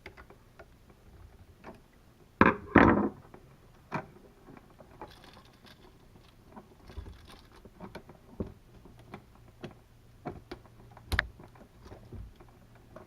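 Scattered light clicks and knocks of a screwdriver and wires being worked onto the terminal screws of a 15-amp wall outlet receptacle. There are two louder handling noises about two and a half seconds in and a sharp click near the end.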